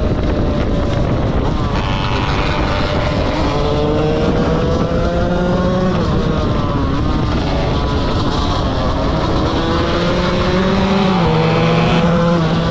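KTM 125 motorcycle engine at full throttle while riding, its revs climbing through the gears. The pitch drops sharply at each upshift, about six seconds in and again near the end.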